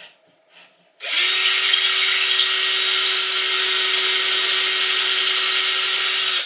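Power drill driving a 2.5-inch wood screw through a board into a wall stud, running steadily for about five seconds and stopping suddenly near the end. A few small clicks come just before it starts.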